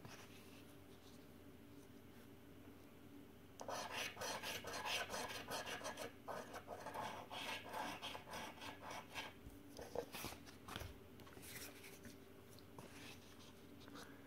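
The coating of a paper scratchcard being scratched off: a few seconds in, a burst of rapid rasping strokes starts, then thins to occasional short scrapes near the end.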